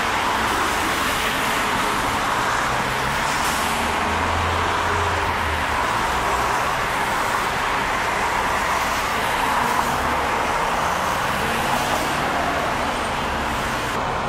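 Steady city street traffic noise, a continuous wash of road vehicles, with a low rumble swelling briefly about four to six seconds in.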